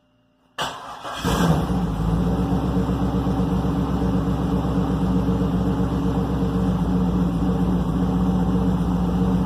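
LS1 V8 engine starting: a brief crank, catching a little over a second in, then running at a steady idle.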